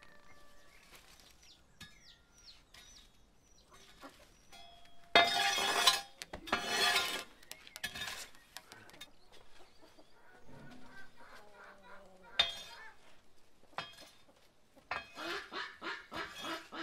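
Chickens clucking and calling, with two loud harsh sounds about five and seven seconds in and a few metal clinks.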